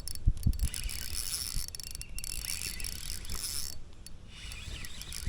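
Fishing reel being cranked to bring in a hooked fish, its gears turning with a faint ratcheting mechanical sound.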